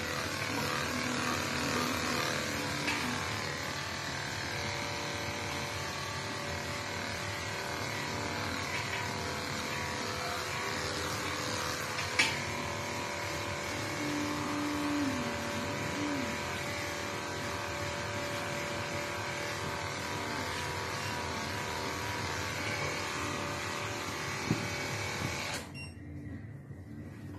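Electric pet-grooming equipment running with a steady whirring hiss, cut off suddenly near the end, with a few sharp clicks along the way.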